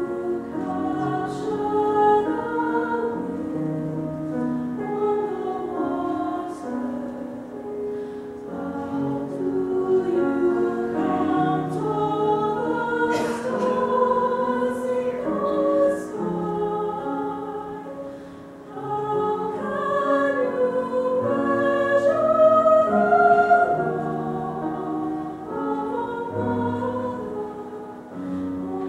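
A mixed choir of men's and women's voices singing sustained notes in several parts, with a brief break between phrases about two-thirds of the way through.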